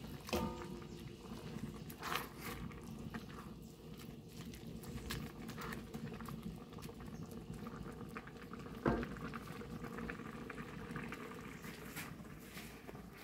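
Grated papaya and pineapple sweet simmering over low heat in an aluminium pan, bubbling steadily with small crackles, as a wooden spoon stirs it. A couple of brief knocks stand out, a louder one about nine seconds in.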